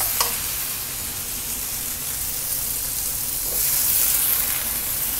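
Onion and tomato masala sizzling in a hot wok, the sizzle swelling and hissing louder about three and a half seconds in as a cup of water is poured into the pan.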